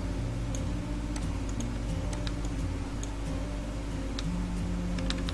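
Sharp computer mouse clicks at irregular intervals, several over a few seconds, over soft background music of low held notes.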